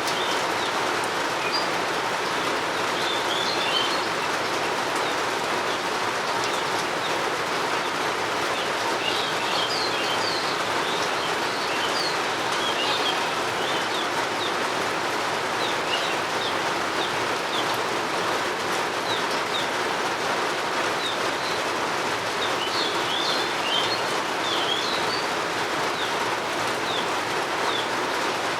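Steady rain falling, with birds chirping over it in short, high, scattered bursts.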